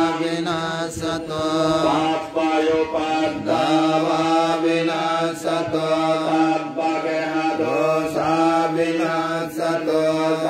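Buddhist monks chanting Pali verses into a microphone: a continuous recitation on a held, even pitch, with short dips in pitch at the ends of phrases.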